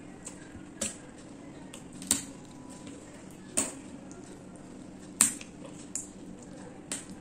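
Close-miked eating sounds of prawn curry with rice: a string of about six sharp, crisp clicks a second or so apart, over a steady low hum.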